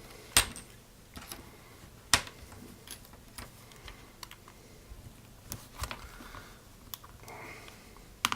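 Irregular small sharp clicks and taps as an iPhone 5s display is pried open with a suction cup and pry tool, the tight-fitting screen working loose.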